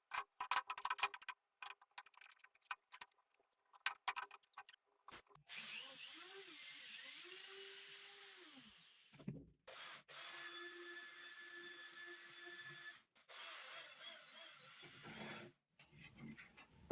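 A string of light knocks and taps on wood, then a power drill running in three short runs, its motor pitch rising and falling as it speeds up and slows down.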